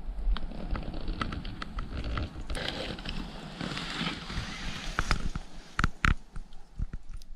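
Outdoor ambient noise: a rustling haze with a fluctuating low rumble and scattered clicks and crackles, a few sharper clicks about six seconds in.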